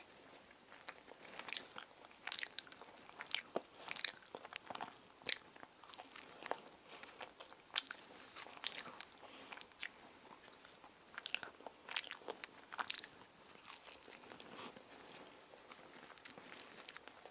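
A child chewing a soft sandwich, with irregular smacking mouth clicks a few times a second.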